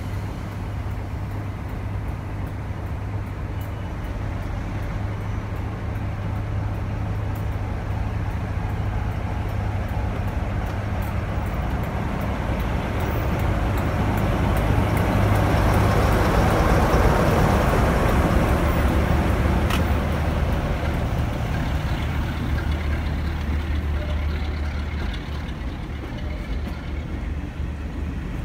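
Class 47 diesel-electric locomotive with its Sulzer twelve-cylinder engine running as it pulls away with a train. The steady low engine drone grows louder until the locomotive passes, loudest about halfway through, then eases as the coaches roll past.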